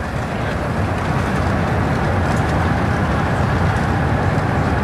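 Airbus A380 cabin noise during the landing rollout: a steady low rumble of the engines and the run along the runway, growing gradually louder.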